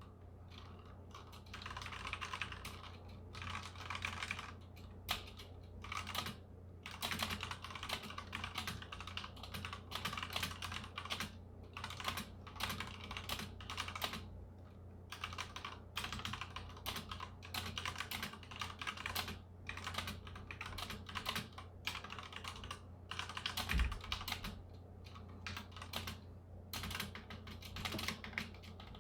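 Continuous typing on a Ducky One 2 full-size mechanical keyboard with Cherry MX Red linear switches: rapid key clacks in runs separated by short pauses. A steady low hum sits underneath.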